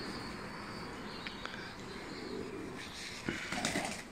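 Domestic pigeons cooing softly, with wing flutters and rustling about three seconds in.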